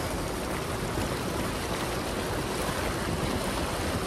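Steady rush and wash of floodwater pushed aside by a Jeep driving slowly through it, throwing up a wake.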